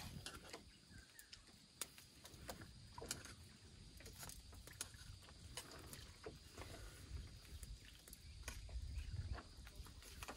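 Faint, scattered clicks and taps of a utensil against small metal camping pots and a pan, over a low rumble.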